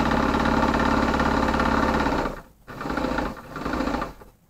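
Electric sewing machine running at a steady speed, stitching a seam through quilted fabric. It stops about two seconds in, then runs again in two short spurts.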